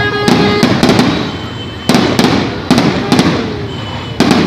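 Fireworks shells bursting in a rapid series, about six sharp bangs in four and a half seconds, each trailed by a low rumbling echo. Faint music plays beneath.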